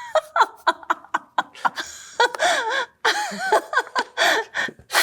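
People laughing and giggling in quick short bursts, with two stretches of wavering, warbling vocal sound in the middle.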